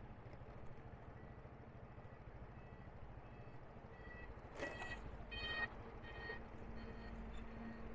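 Small motorbike engine running steadily under a train of short repeated electronic beeps. About halfway through come three short horn honks from nearby traffic.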